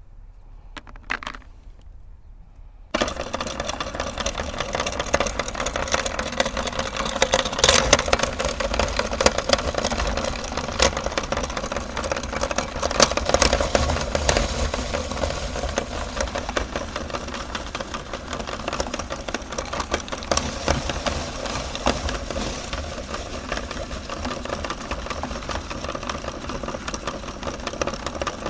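Electric meat grinder switched on about three seconds in, its motor running steadily, with many sharp cracks and clicks as it grinds cookies.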